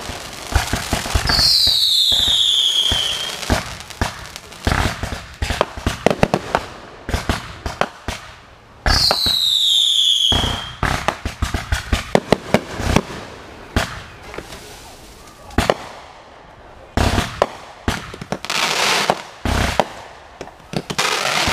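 Fireworks going off: a rapid, irregular series of bangs and crackles, with two falling whistles, one starting about a second in and one about nine seconds in.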